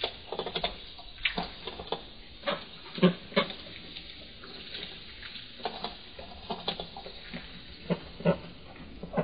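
Ducks dabbling and pecking at wet feed scattered on a rubber floor mat: irregular short clicks and taps of their bills, a few of them louder.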